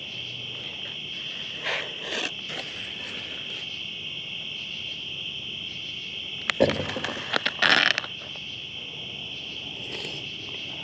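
A steady chorus of crickets on a warm night. Close scraping and rustling cuts in briefly about two seconds in, then again more loudly between about six and a half and eight seconds.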